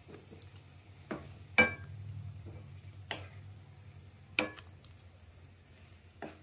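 A ladle knocking and scraping against a glass serving bowl as carrot halwa is scooped into it. There are about five sharp clinks, two of them ringing briefly like struck glass.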